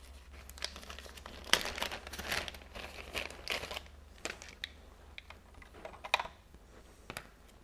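Clear plastic zip-lock bag crinkling and rustling as it is opened and small parts are pulled out of it, in irregular rustles and light clicks that thin out after about four seconds.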